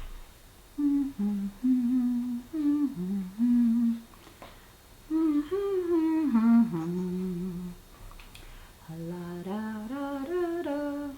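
A woman humming a tune to herself in three short phrases with brief pauses between them.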